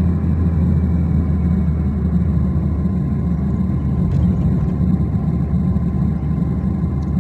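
Steady low rumble of a car's engine and tyres, heard from inside the cabin of the moving car.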